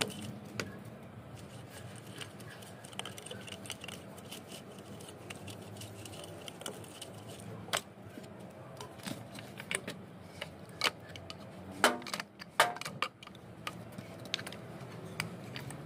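Scattered clicks, taps and knocks of hard plastic and metal parts being handled as a blue plastic automatic pump pressure controller is fitted and screwed onto a water pump's threaded outlet. The loudest knocks come in a quick cluster about twelve seconds in.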